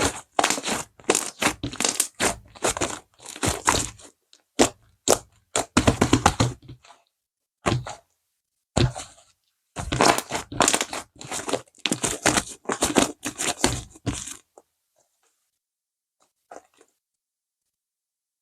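Whipped-cream-style slime with a bead topping being squeezed and pressed by hand, giving rapid crackling and crunching pops in quick bursts. The handling stops about fourteen seconds in.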